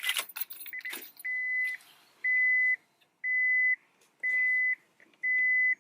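A 2000 Honda Accord's dashboard warning chime beeping steadily, about once a second at one high pitch, after a few clicks of the ignition key being turned.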